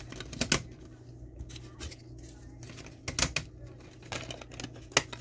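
Plastic DVD cases and disc trays being handled, giving a series of sharp clicks and clacks, the loudest about three seconds in and again near the end.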